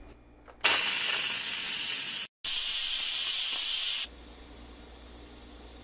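Steam hissing loudly out of an Instant Pot Duo Nova's quick-release valve as pressure is vented after the pressure-cooking cycle. It starts about half a second in, breaks off once for a moment, and cuts off suddenly about four seconds in.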